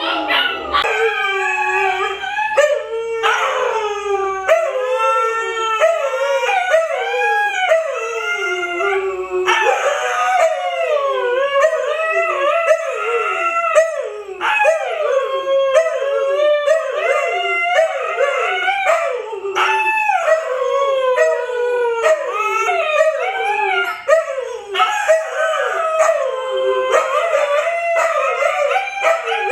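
Several Siberian huskies howling together, overlapping wavering howls that slide up and down in pitch without a break.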